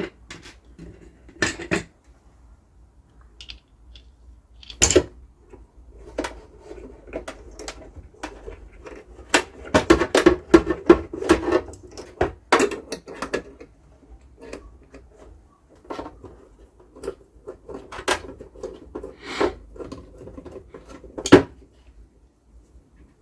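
Irregular clicks, knocks and rattles of metal and plastic parts and tools being handled as a replacement vibratory pump is fitted into a Gaggia Classic espresso machine. A sharp knock near the end is the loudest.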